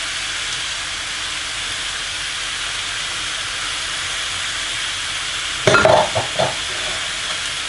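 Onions and mutton chops frying in a non-stick pan: a steady sizzle. A brief, louder clatter comes near the end.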